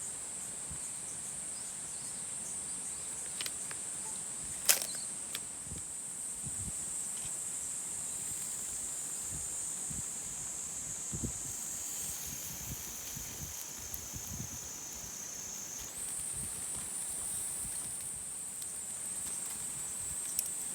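Insects droning steadily in a high continuous chorus, dipping in pitch and thickening for a few seconds in the middle before settling back. A single sharp click almost five seconds in is the loudest moment.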